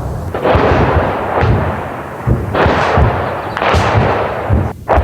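Artillery shelling: shell blasts in quick succession, about one a second, each trailing off in a rolling rumble as the bombardment grows dense.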